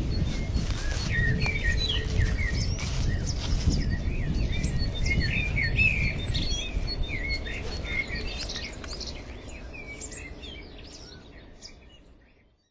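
Wild songbirds singing and chirping, many short warbled notes, over a low rumble; it all fades out over the last few seconds.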